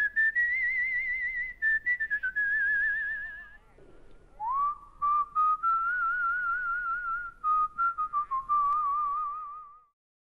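A person whistling a slow tune in two phrases. Each phrase opens with an upward slide into long held notes with a wavering vibrato, and the second phrase is pitched lower than the first.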